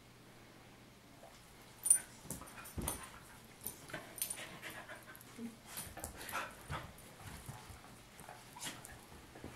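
Two dogs play-fighting, a brown Labrador-type dog and a small white long-haired dog. About two seconds in comes a sharp click, then a string of short, irregular dog noises and scuffles.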